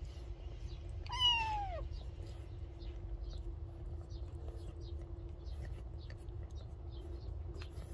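A cat meowing once, about a second in, the pitch falling steeply. A faint steady hum and faint ticks run underneath.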